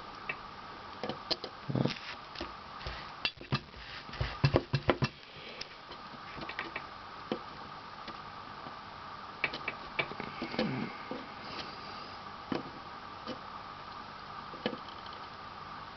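Irregular small clicks and taps of hand-soldering work on a circuit board's connector pins, with a cluster of louder taps about four to five seconds in, over a steady faint hum.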